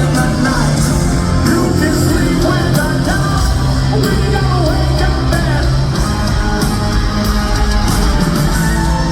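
A hard rock band playing live and loud, with distorted electric guitars, bass and drums under a lead vocalist singing.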